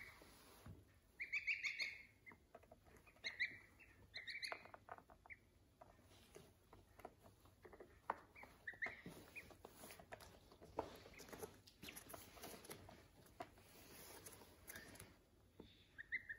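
Downy waterfowl chicks peeping in short high calls, loudest and most frequent in the first few seconds, with a few more later. In between there are soft taps and pattering from the chicks moving and pecking on the windowsill.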